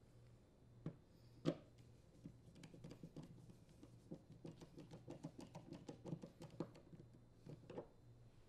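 Faint clicking and quick ticking of a Phillips screwdriver turning screws into a leaf blower's plastic handle, with a sharper click about a second and a half in.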